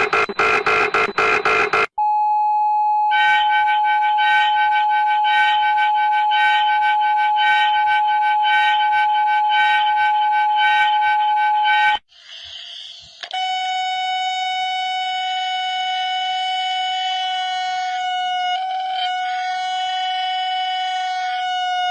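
Electronic emergency-alert tones. A rapid pulsing beep lasts about two seconds, then a long steady alarm tone runs for about ten seconds. It cuts off into a short burst of static, and a second steady alarm tone follows at a slightly lower pitch, stuttering briefly near the end.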